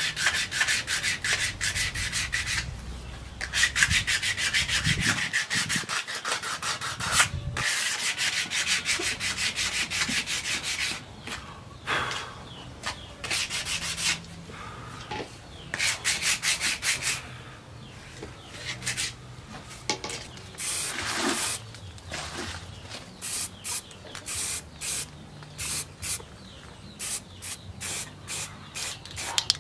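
Steel knife blade being hand-sharpened, with a hand-held sharpener scraped back and forth along the edge. The strokes come quick and continuous at first, then about halfway through they turn into separate strokes with short pauses between them.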